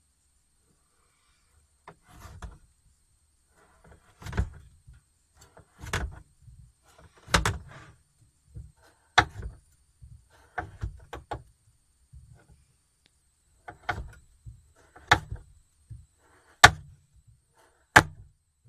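Chef's knife chopping frozen portobello mushrooms on a plastic cutting board: about a dozen sharp knocks, irregularly spaced about a second apart, as the blade cuts through the frozen mushroom and strikes the board. The last two are the loudest.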